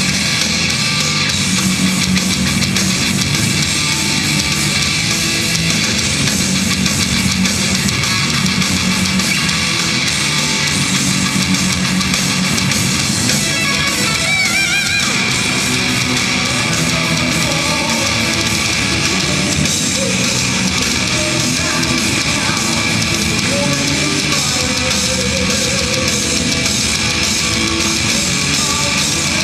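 Heavy metal band playing loud with distorted electric guitars, a wavering high note about halfway through.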